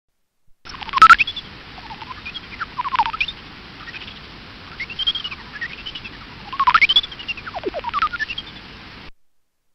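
Horseshoe bat calls made audible through a bat detector: a series of chirps that sweep up and down in pitch, some arching, with a few sharp clicks. The loudest chirp and click come about a second in.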